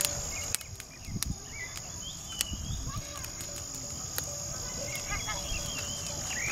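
A steady high-pitched insect drone, with a few short bird chirps and scattered sharp clicks over it.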